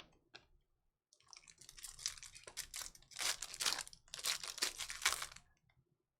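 Foil trading-card pack wrapper crinkling and tearing as a pack is ripped open, in several rustling bursts starting about a second in.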